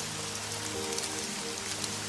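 Steady rain with scattered individual drops ticking, mixed with soft music of held low notes that change about halfway through.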